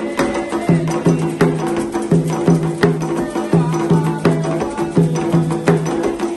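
Afro-Brazilian percussion music: drums played in a steady, repeating rhythm with sharp strokes over recurring low notes.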